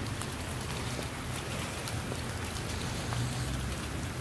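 Steady rain falling on wet ground and into a shallow rivulet of runoff: an even hiss with scattered ticks of single drops, over a low rumble.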